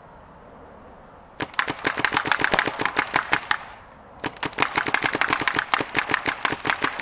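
Planet Eclipse Gmek mechanical paintball marker firing two rapid strings of shots, the first starting about a second and a half in and the second after a short pause about four seconds in.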